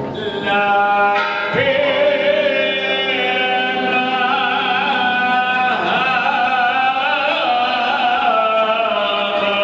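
Orthodox liturgical chanting: voices singing long held notes that move slowly from pitch to pitch, with small slides between notes.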